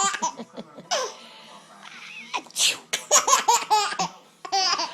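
A woman's fake sneeze about halfway through, followed by a baby laughing hard in quick rhythmic bursts, with more laughter near the end.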